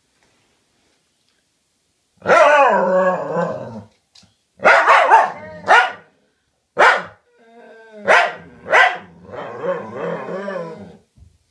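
Dogs vocalizing at each other, the back-and-forth 'talking' of two dogs: silence, then about two seconds in a long wavering growly moan, followed by a run of five or six short barks, and another drawn-out wavering growl near the end.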